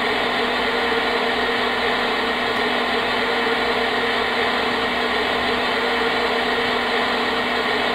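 Homedics SoundSpa Rejuvenate sound machine playing its white noise setting: a steady, unchanging hiss with a few faint steady tones inside it.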